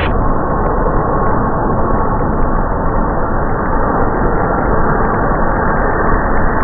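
Twin-engine jet airliner passing low overhead on final approach to land, its jet engines making a loud, steady noise.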